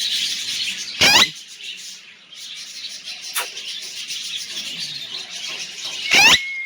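A parrot gives two loud, short screeching calls that sweep in pitch, one about a second in and one near the end, over a steady high-pitched background chatter.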